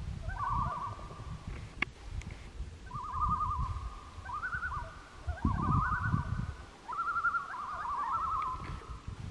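Several common loons giving overlapping tremolo calls, the rapid wavering laugh-like call, repeated again and again over a low rumbling noise.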